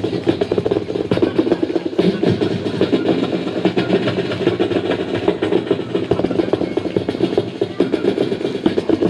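A man imitating a running train with his mouth into a microphone, amplified through a PA: a steady, rapid chugging rhythm like a train engine under way.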